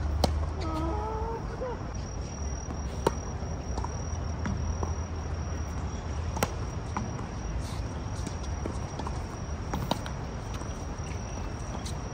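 Tennis balls struck with rackets during a rally: sharp pops about every three seconds, with fainter hits and bounces between. A steady low rumble runs underneath.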